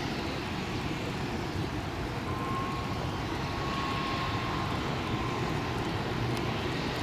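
Turboprop engines of a military transport aircraft running steadily, with a faint thin whine through the middle.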